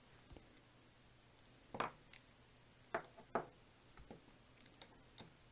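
A few faint clicks and taps of small plastic model parts and a screwdriver being handled on a work mat, the three loudest about two, three and three and a half seconds in.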